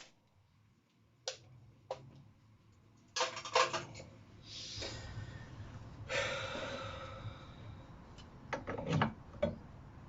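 Clinks, knocks and rattles of metal tools and parts being handled. A cluster of clatter comes a little after three seconds and more near the end, with two spells of rustling and scraping in between.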